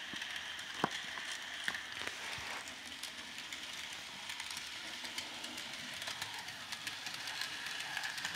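Bachmann N-scale Durango and Silverton model steam locomotive and its passenger coaches running past on the track: a steady whir from the small electric motor and wheels, with many light clicks as the wheels roll over the rails.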